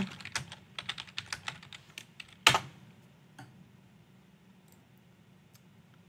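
Typing on a computer keyboard: a quick run of keystrokes for about two seconds, ending in one louder keystroke, then a few faint separate clicks.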